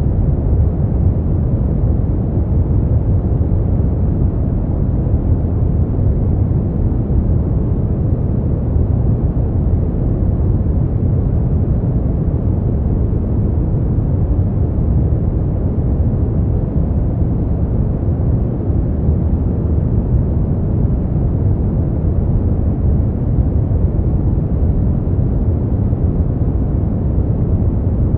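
Steady, unchanging noise for sleep, deep and rumbling rather than hissy: most of it sits in the bass and it dies away toward the treble, closer to brown noise than true white noise.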